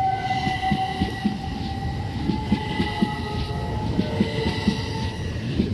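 Southeastern electric multiple unit pulling away along the platform: the whine of its electric traction equipment, rising slightly in pitch over the first couple of seconds, with a run of wheel clicks over the rail joints as the carriages pass.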